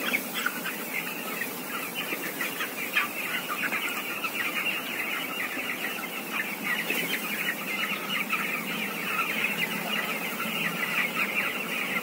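A large flock of thirteen-day-old broiler chicks peeping continuously, many high short chirps overlapping into a steady chatter.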